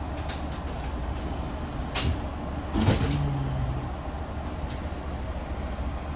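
Running passenger train heard from inside the car: a steady low rumble, with sharp knocks and rattles of the car about two seconds and three seconds in, the second one the loudest.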